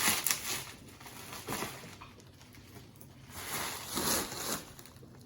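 Plastic packaging crinkling and rustling in bursts as a wrapped gift is handled and unwrapped.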